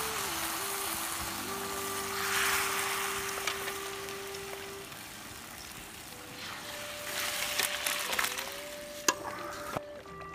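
Pork trotters and sour pickled greens sizzling in a wok, with soft background music and a few sharp clicks near the end.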